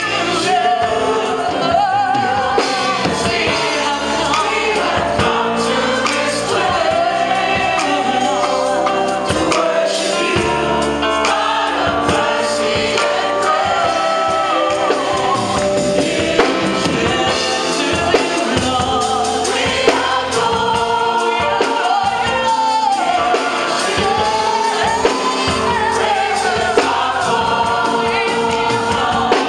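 Gospel praise-and-worship singing by a choir, with instrumental accompaniment underneath.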